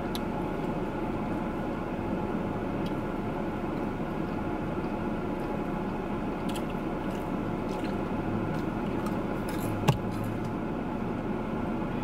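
Steady hum of a parked car running, heard inside the cabin, with a few faint clicks and a sharper click about ten seconds in.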